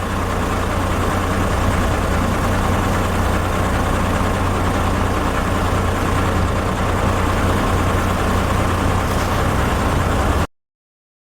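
Steady low engine rumble, like a vehicle idling, that cuts off abruptly about ten and a half seconds in.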